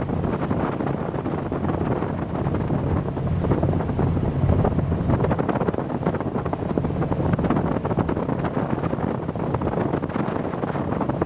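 Strong wind buffeting the microphone as a steady low rumble and rush, gusting harder a few seconds in.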